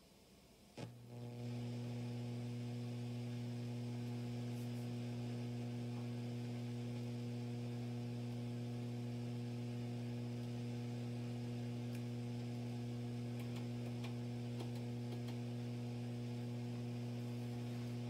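Acoustic B25C bass combo amp putting out a steady hum through its speaker, coming on with a click about a second in as the variac brings it up to about 106 volts. The hum does not change as the volume and tone knobs are turned: a fault noise, which the owner guesses may come from a capacitor.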